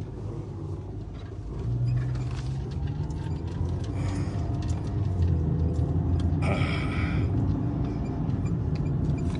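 Car engine and road noise heard from inside the cabin as the car drives along, growing louder about two seconds in as it picks up speed.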